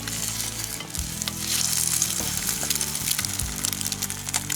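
Egg frying in a small skillet over an alcohol stove: a steady crackling sizzle, strongest in the middle, with the scrape of a wooden spatula working under the egg to flip it.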